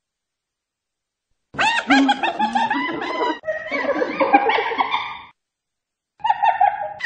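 Spotted hyena giggling: a rapid string of high, rising-and-falling yelping notes starting about a second and a half in and lasting about four seconds, then a shorter burst near the end.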